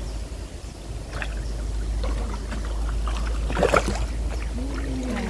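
Creek water sloshing and splashing as a person wades waist-deep and plunges an arm under the surface, with a louder splash a little past halfway and a steady low rumble underneath. A voice starts near the end.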